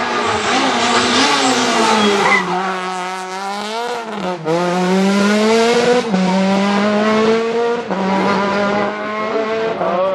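Rally car engine at high revs, accelerating hard. Its pitch climbs and drops back sharply with each gear change, four times in a row.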